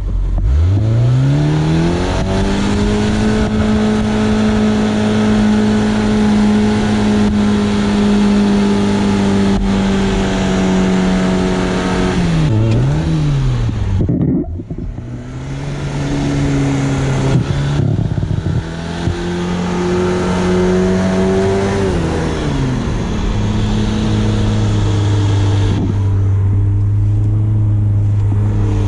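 Suzuki SJ410's small four-cylinder engine revving hard under load: the pitch climbs quickly in the first two seconds and holds high for about ten seconds, drops off about halfway through, picks up again, and settles at a lower, steady speed near the end.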